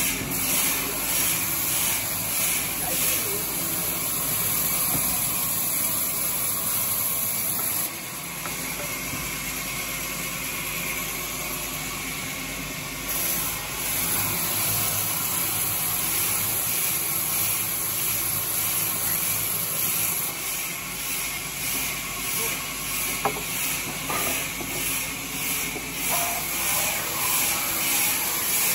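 Large vertical band saw running and ripping hardwood beams into planks, a steady hissing rasp from the blade. It drops quieter for a few seconds about a third of the way in, then picks back up.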